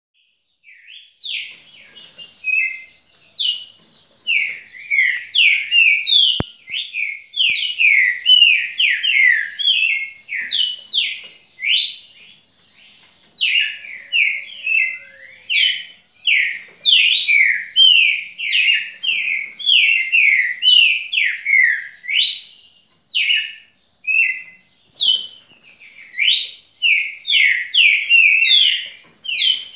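Caged songbird singing a long run of rapid, sharp, high notes, breaking off briefly about halfway through before starting again.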